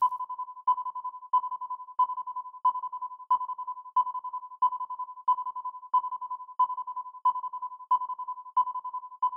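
Electronic background music: a single high note pulsing steadily, about one and a half beats a second, like a ringtone.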